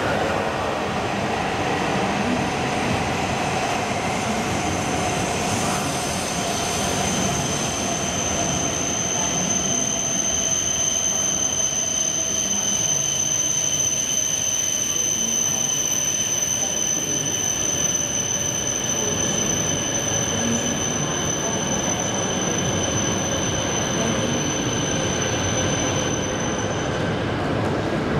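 Coupled E5 and E6 series Shinkansen train running slowly along the platform, with a steady rumble and hiss, a low tone that gradually falls in pitch as it slows, and a steady high-pitched squeal that stops shortly before the end.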